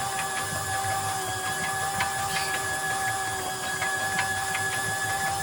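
Steady machine whine with a low rumble and a few irregular sharp ticks.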